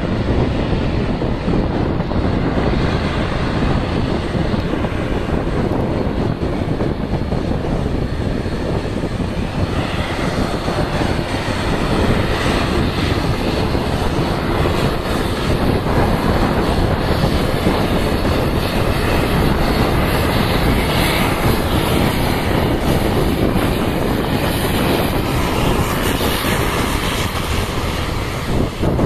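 ATR turboprop airliner's engines and propellers running as it taxis on the runway, growing a little louder partway through as it nears, mixed with wind buffeting the microphone.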